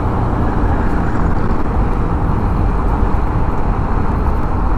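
Steady rush of wind and road noise from a Yamaha Aerox scooter cruising at about 40–48 km/h, with a heavy low rumble from wind on the microphone.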